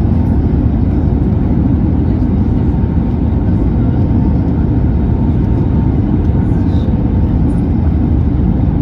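Steady low rumble of an Airbus A320neo heard from inside the cabin: engine and airflow noise, even in level and pitch throughout.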